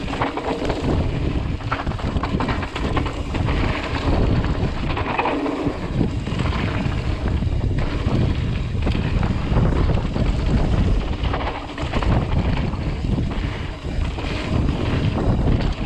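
Mountain bike running fast down a dirt downhill trail: steady rumble of wind buffeting the microphone and tyres rolling on dirt, with frequent knocks and rattles from the bike over bumps.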